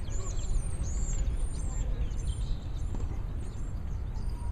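Small birds chirping: a quick run of short, high, arching chirps over a steady low rumble of wind on the microphone.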